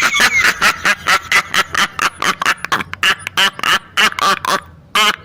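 Laughing sound effect: a fast string of short, pitched "ha-ha" pulses, about five a second, that fades out about four and a half seconds in, with a short burst starting again near the end.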